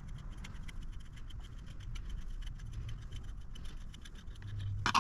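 Grease gun pumping wheel bearing grease through a cone-style bearing packer into a front wheel bearing: a steady run of small irregular clicks and crackles, with one louder click near the end.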